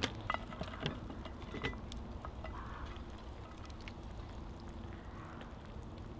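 Campfire crackling, with a few sharp pops in the first two seconds and then a soft, even background.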